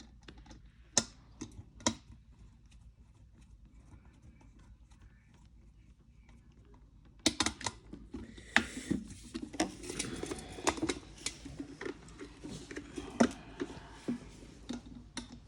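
Hands working on a disassembled electric kettle: a few sharp clicks of plastic parts, then, about halfway through, a busy run of clicking, rattling and scraping as the parts are fiddled with.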